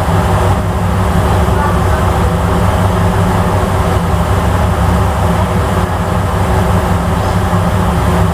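Steady low drone of a ferry's engines heard on board, with a constant rushing noise over it.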